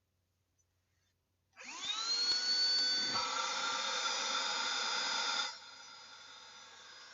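Cordless handheld car vacuum cleaner switched on: its motor spins up with a quickly rising whine and runs steadily with a high whine and airflow hiss. After about four seconds of running it becomes much quieter but keeps going.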